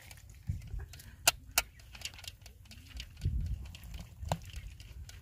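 Steel colander of drained half-boiled rice clinking against the steel pan beneath it: two sharp metal clinks a little over a second in and another about a second from the end, over a low rumble.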